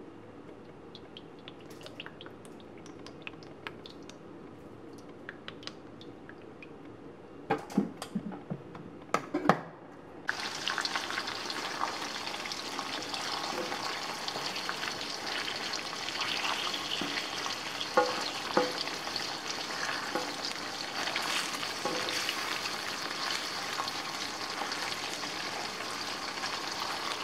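Small whole fish frying in oil in an aluminium wok. Faint crackling at first, then a few loud clatters and knocks about eight to ten seconds in. After that a sudden, steady, loud sizzle as the fish fry, with a spatula knocking on the wok now and then.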